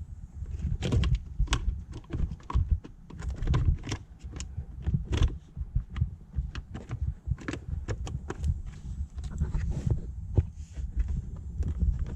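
Plastic cabin air filter access door being fitted back onto the HVAC housing: irregular plastic clicks, taps and knocks over low handling thumps.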